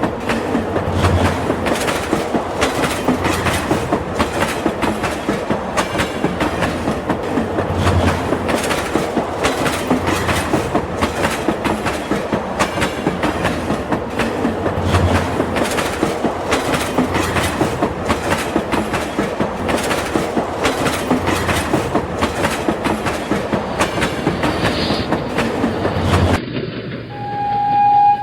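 Toy train running on its track: quick, steady clicking of the wheels over the rail joints, with a deeper thump about every seven seconds. Near the end the sound changes abruptly and a short, steady horn tone sounds.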